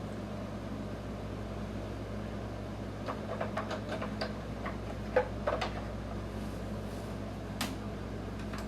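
Light plastic clicks and taps of toy parts being handled as cannon shells are fitted onto a 1990 G.I. Joe General toy vehicle. The clicks come in a scattered cluster through the middle, with one more near the end, over a steady background hum.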